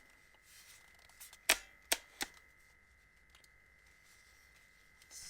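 Three sharp plastic clicks from a camera flash unit being handled, the first the loudest, then a few faint ticks.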